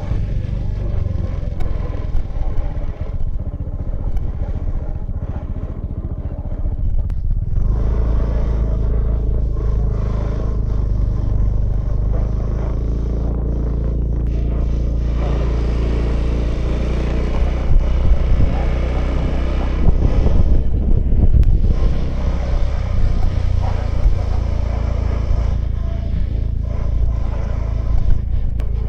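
A 2018 Honda Vision scooter's small single-cylinder engine running while riding, with wind and road noise. The engine picks up and runs louder from about a quarter of the way in.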